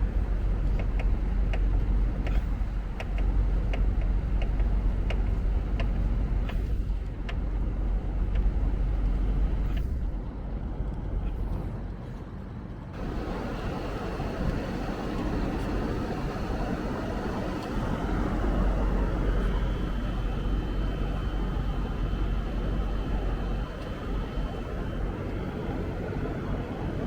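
Split air conditioner's outdoor unit running with a steady low hum, with light regular ticking in the first few seconds. The sound changes abruptly about halfway through.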